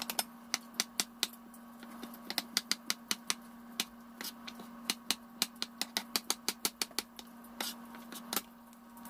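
Chef's knife dicing a soft avocado on a plastic cutting board: a quick, uneven run of sharp taps as the blade strikes the board, thickest in the middle and stopping shortly before the end. A faint steady hum runs underneath.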